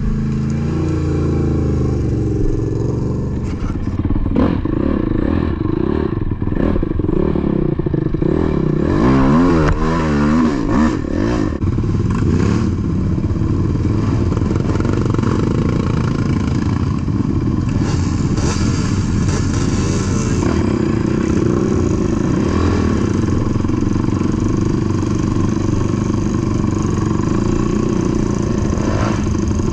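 ATV engine running, its pitch rising and falling quickly about nine to eleven seconds in as it is revved. Knocks and rattles come through in the first half.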